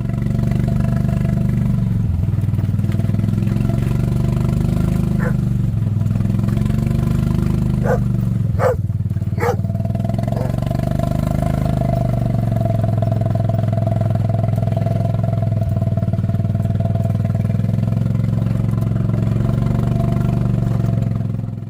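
A motor running steadily and loudly, with a few brief higher-pitched sounds about a quarter to halfway through.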